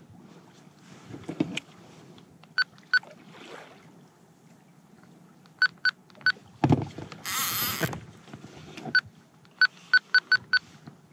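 Handheld VHF marine radio giving about a dozen short, identical electronic key beeps as its buttons are pressed to change channel, several in quick succession near the end. About seven seconds in comes a loud, brief burst of hiss, with faint water wash on the kayak underneath.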